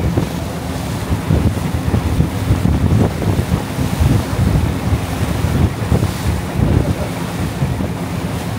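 Wind buffeting the microphone on a boat under way, over a steady engine drone and the rush of the boat's wake. The rumble is loud and gusty throughout.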